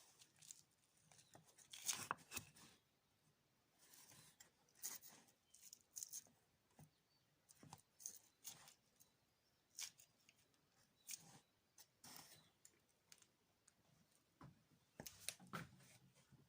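Faint, irregular crackles, scrapes and clicks of hand work: a couple of dozen short sounds at uneven intervals, the loudest about two seconds in and again near the end.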